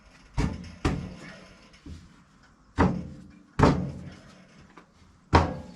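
Five loud wooden knocks and thuds at irregular intervals, each ringing briefly: scrap lumber and offcuts being knocked about and tossed while clearing out from under the sawmill bed.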